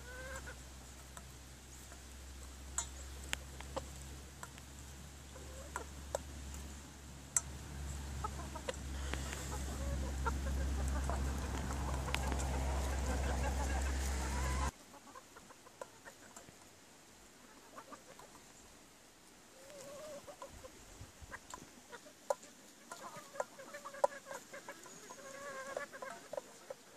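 A flock of partridge-coloured Italian (Leghorn) chickens clucking softly while feeding, with scattered sharp clicks. A low steady hum underlies the first half and cuts off abruptly about halfway. The clucking grows busier near the end.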